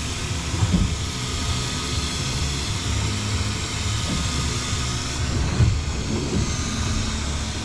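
Boat engine running steadily, with wind and water hiss over it.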